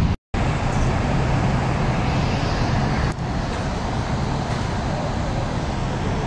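Steady low rumbling background noise with a hiss. The sound cuts out completely for a moment just after the start.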